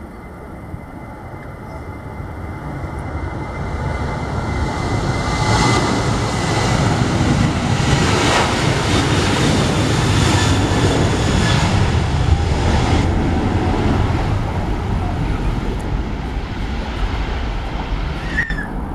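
Jet airliner passing close by, its engine roar swelling over several seconds, holding loud through the middle, then slowly fading.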